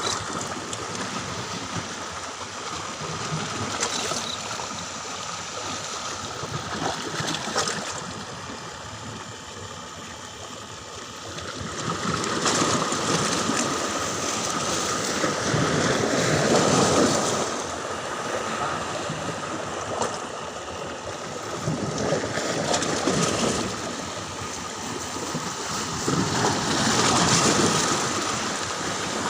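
Flowing, splashing water that swells louder every several seconds, with a thin steady high tone beneath it.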